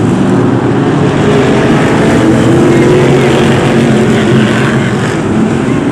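Engines of several BriSCA F1 stock cars running hard as they race past in a bunch, a loud, continuous engine noise.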